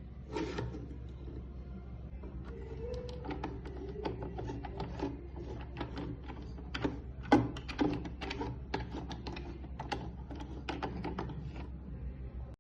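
Irregular clicks and knocks of a plastic manual cheese and ham slicer and its storage container being handled and fitted together, with the loudest knock about seven seconds in, over a steady low hum.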